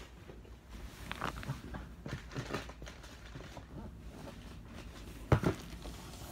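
Quiet handling noises: light rustles and clicks as wrapped presents are moved about, with one sharp knock about five seconds in.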